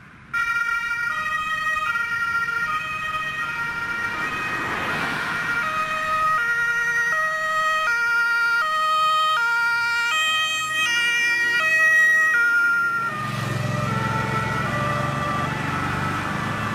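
German two-tone emergency siren (Martinhorn) on an Audi Q7 emergency doctor's car, switched on abruptly and alternating between its two tones about every 0.8 s. Near the end the car passes close: the tones drop slightly in pitch and its engine and tyre noise rise beneath them.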